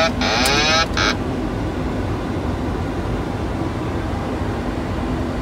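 Steady cockpit noise of a Boeing 737-800 descending on approach. For about the first second a hissing, warbling burst with sweeping tones sounds over it, then stops.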